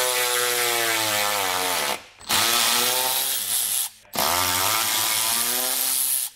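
Cordless ratchet running 3/8-inch lag bolts into wall anchors in three runs, stopping briefly about two seconds and four seconds in. Its motor whine drops in pitch during each run as the bolt tightens.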